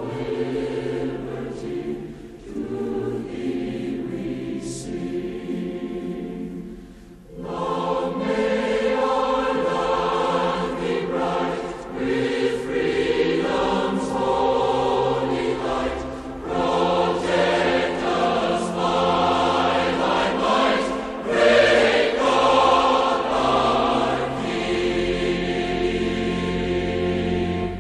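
Choral music soundtrack with sustained sung chords, dipping briefly about a quarter of the way in and fading out at the end.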